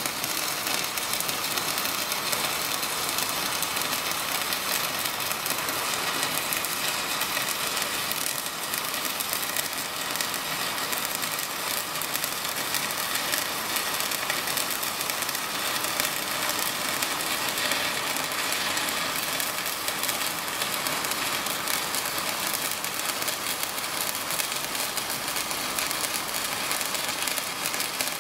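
Stick (MMA) welding arc crackling steadily as a coated electrode burns along a 5 mm steel plate, powered by a Parweld XTM 221Di inverter welder.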